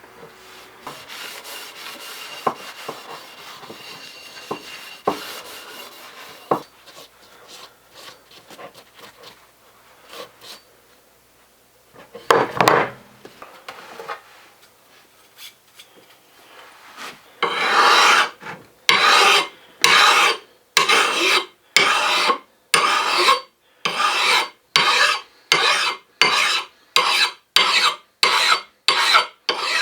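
Hand file being drawn in strokes during the hatchet work: light, uneven rubbing at first, a single stroke about twelve seconds in, then steady rhythmic strokes, about one and a half a second, from a little past halfway.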